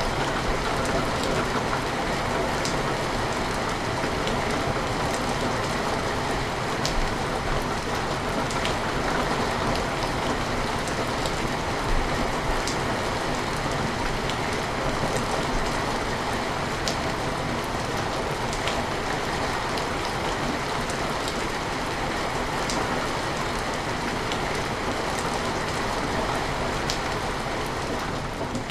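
Steady rain falling on window glass, an even hiss with scattered sharper drop taps throughout.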